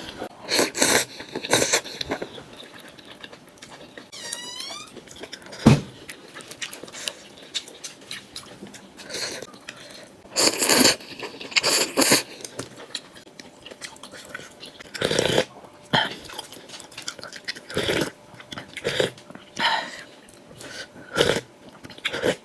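Eating sounds: irregular chewing, crunching and scraping in short bursts every second or two.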